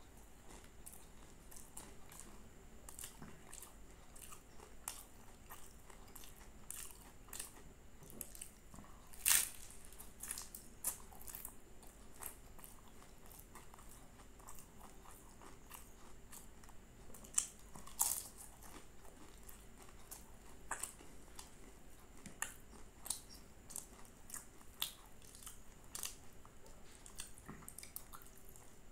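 Close-up chewing and crunching of flaky puff-pastry aloo patty, with sharp crackling bites at irregular moments; the loudest crunches come about a third of the way in and around the middle.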